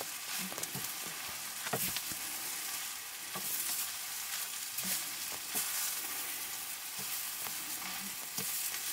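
Green leafy vegetables sizzling in a black wok over a wood fire while a long-handled spatula stirs them. A handful of short clicks and scrapes, about six, from the spatula on the pan.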